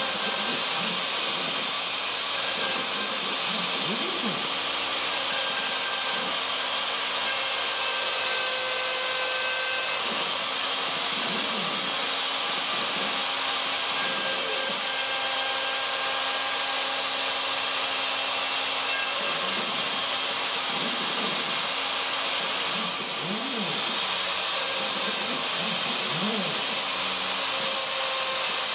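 Craftsman 2 hp router, the spindle of a CNC machine, running with a steady high whine while its bit cuts into a cedar fence picket. Short low tones slide up and down in pitch under it every few seconds.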